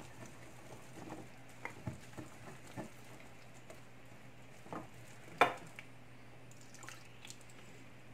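Wire whisk stirring a thick flour batter in a glass bowl: faint soft mixing with scattered light clicks, the loudest about five and a half seconds in.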